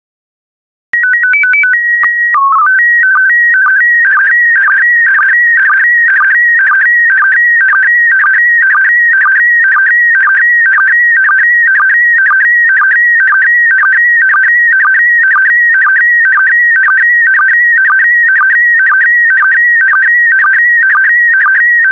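Slow-scan television (SSTV) signal in PD120 mode. About a second in, a short run of quickly alternating beeps and a steady leader tone with a brief low dip (the mode's header) give way to the picture data: a warbling electronic tone that repeats about twice a second, one pair of image lines per repeat.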